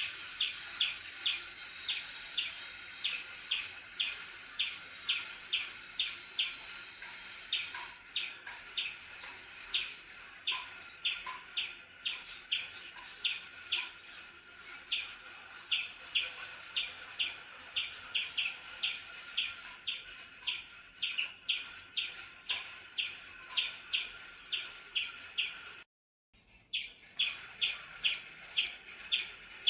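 An animal's sharp, high chirping call, repeated steadily about two to three times a second, with a brief dropout about 26 seconds in.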